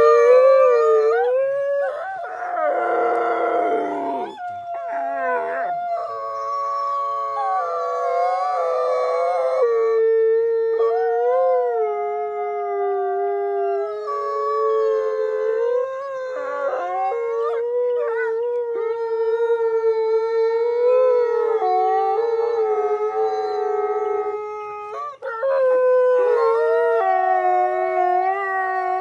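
Several wolves howling together in a chorus: long, held notes that glide up and down, overlapping at different pitches, with a rough, noisy outburst about two to four seconds in.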